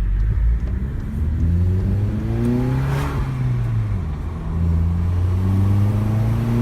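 Volkswagen Golf GTI Mk7's turbocharged four-cylinder, running a catless downpipe with a Vibrant 17930 resonator, heard from inside the cabin while accelerating: the engine note climbs, drops at a gear change about three seconds in, then climbs again. The exhaust is free of the annoying drone the catless downpipe used to cause.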